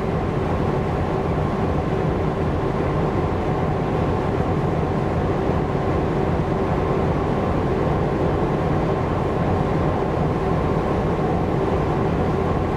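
Ship's diesel engine running with a steady, unchanging drone and a low hum under it.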